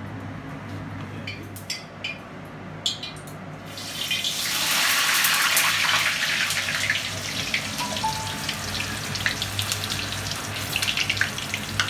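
Fridge-cold, pre-cooked French fries dropped into hot oil in a kadai for their first, light fry. About four seconds in, a loud burst of sizzling starts, driven by the moisture on the chilled fries. It slowly settles into a steady crackling sizzle with scattered pops, after a few light clicks of handling before the drop.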